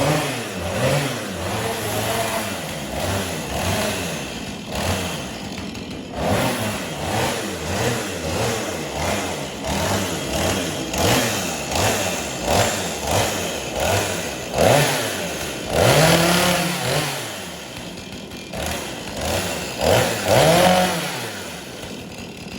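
Chainsaw engine revved up and down over and over, each rev rising and falling in pitch, with a couple of longer, louder revs in the second half.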